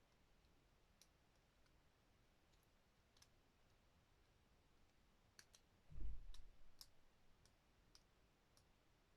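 Scattered small clicks of the plastic parts of a Transformers Studio Series action figure being worked into place, with one dull low thump about six seconds in.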